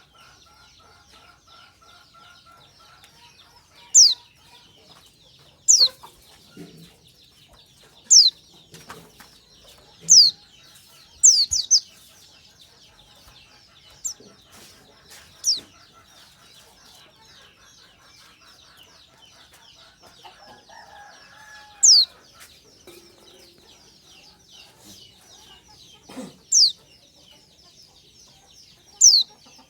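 Pleci (white-eyes) calling: sharp, high, thin chirps, each falling quickly in pitch, at irregular intervals of a second or two up to several seconds, over a constant faint high twittering.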